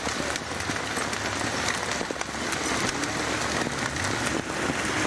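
Heavy hailstorm: hail and rain pelting down in a dense, steady hiss dotted with many small sharp ticks of stones striking.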